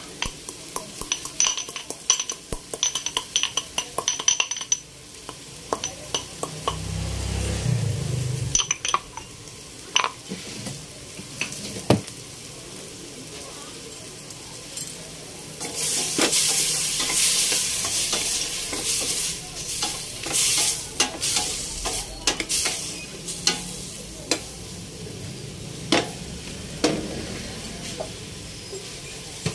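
A pestle cracks whole black peppercorns in a stone mortar for the first few seconds: quick sharp clinks with a short ring. Then pork ribs, onions and tomatoes sauté in oil in a pot, sizzling while a spoon stirs and scrapes the pot. The sizzle is loudest for several seconds from about halfway through.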